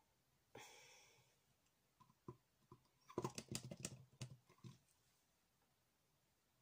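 Light clicks and taps from a canvas and craft bottles being handled on a work table, clustered between about two and five seconds in, after a short soft hiss about half a second in. Otherwise near silence.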